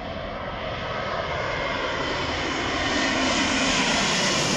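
Twin-engine widebody jet airliner on final approach with landing gear down, its engine noise growing steadily louder as it passes low overhead.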